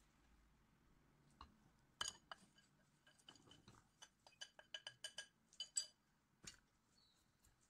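Light clinks and taps on a glass mixing bowl as a plastic tub of dry mix is tipped and tapped out over it: one sharp clink about two seconds in, then a quick run of a dozen or so taps, the loudest near the end.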